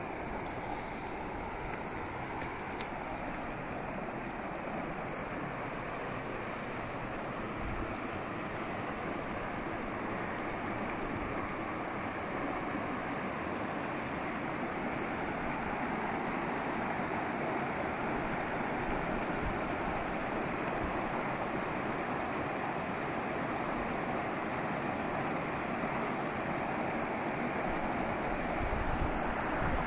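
A fast mountain river rushing over rocks in shallow rapids: a steady, even rush of water that grows a little louder toward the end.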